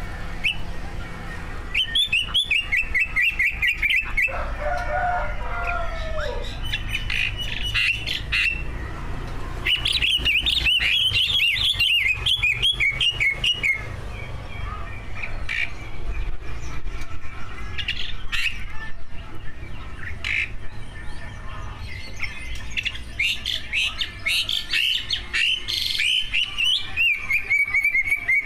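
Cucak ijo (green leafbird) singing in bursts of fast, high trills and chattering phrases, with a lower warbling phrase about five seconds in, over a steady low background hum.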